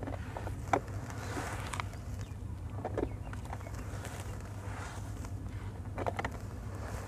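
Gloved hands crumbling and squeezing wet white sand-cement clumps into water in a basin, making gritty crunches and crackles, the sharpest about a second in and others near the middle and the end. A steady low hum runs underneath.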